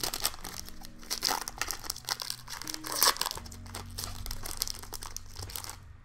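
Foil wrapper of a Weiss Schwarz booster pack crinkling as it is handled and opened, with irregular crackles that are loudest about one and three seconds in.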